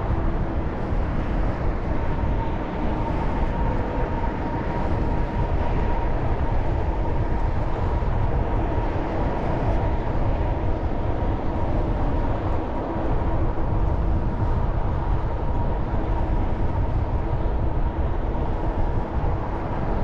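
Steady wind rush on the microphone and road noise from a moving bicycle, with a faint steady whine that joins about two seconds in.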